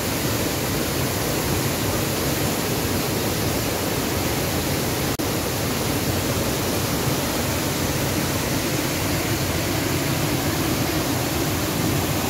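Waterfall in full monsoon flow: a steady, loud rush of falling water, broken only by a momentary dip about five seconds in.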